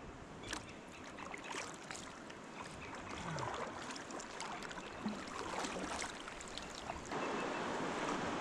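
Kayak paddle dipping into moving river water, with irregular splashes and drips over the flow of the current. About seven seconds in, a louder steady rushing sound sets in.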